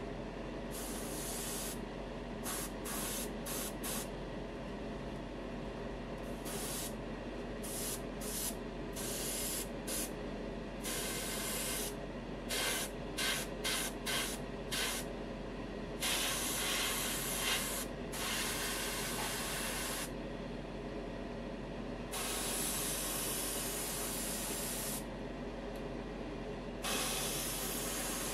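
Gravity-feed airbrush spraying enamel paint in on-off bursts of hiss, many short ones in the first half and longer passes later, over a steady hum.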